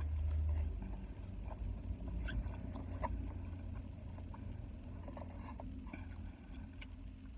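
Eating sounds: faint chewing and small clicks and scrapes of a utensil in a food container, over a steady low rumble inside a car.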